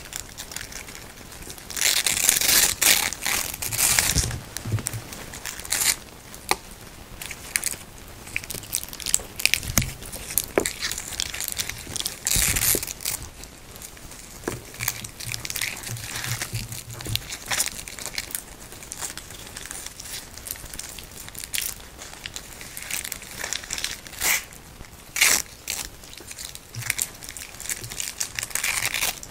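Hook-and-loop (Velcro) straps being pulled apart and handled by hand: irregular scratchy rips and rustles. The longest, loudest rips come about two to four seconds in, around twelve seconds and around twenty-five seconds.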